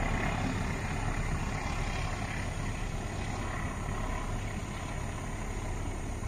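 Passenger train rolling on the rails as it moves away, a steady rumble that slowly fades.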